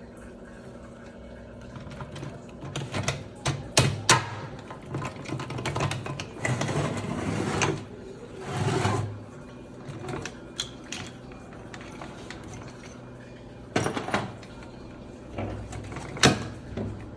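Mechanical clicking and rattling of metal parts, in a cluster of sharp clicks and short rattles through the first half and a few more near the end, over a steady low hum.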